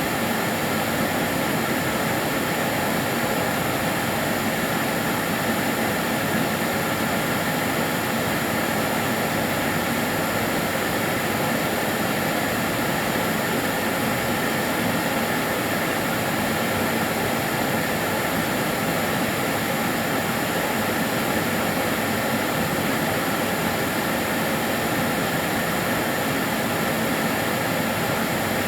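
Karcher DS 6 Premium water-filter vacuum cleaner running continuously, a steady whooshing motor-and-airflow noise with a faint steady whine and no change in level.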